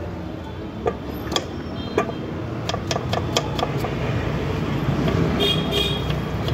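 Knife chopping an onion on a wooden board: irregular sharp taps, sometimes in quick clusters, over a steady low rumble of street traffic.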